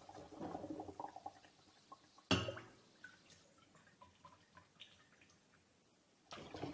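Cherry liqueur poured through a funnel into a glass bottle, trickling for about two seconds. A sharp knock a little after two seconds is the loudest sound, followed by scattered drips, and the trickling starts again near the end.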